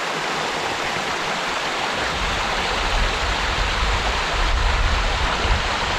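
Creek water rushing over rocks, a steady even hiss. A low rumble joins underneath about two seconds in.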